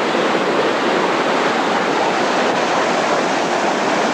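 Rushing water of a waterfall, a loud, steady, even rush with no breaks.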